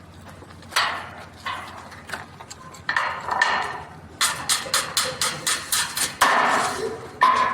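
Hammer blows on a steel frame: a few separate strikes, then a quick run of about five strikes a second, with some short metallic ringing, and louder hits near the end.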